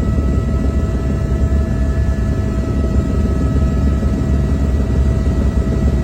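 Helicopter running in flight: a steady, heavy low drone from the rotor and engine, with a constant high turbine whine over it.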